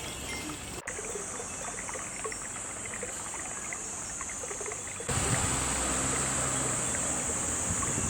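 Japanese wind bells (furin) tinkling faintly and sparsely over a steady hiss of trickling water and a high steady hiss. The sound breaks off for an instant about a second in and becomes louder about five seconds in.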